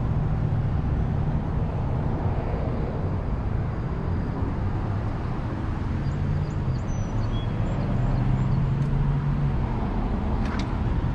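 Steady low rumble of road-vehicle noise, with one short click about ten seconds in.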